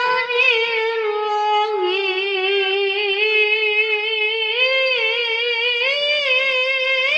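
A young boy qari reciting the Quran in a high voice in melodic tilawah style: one long held note with small wavering turns, rising a little near the end.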